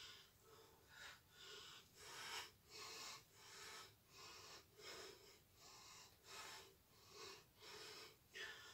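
A woman's exercise breathing: faint, rhythmic breaths in and out through the mouth, about two a second, keeping time with swinging arm movements.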